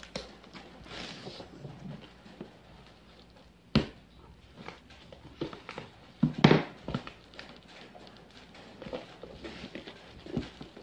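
Black plastic parcel wrapping being picked at and torn open by hand: irregular crinkling and crackling with scattered sharp snaps, the loudest burst about six seconds in.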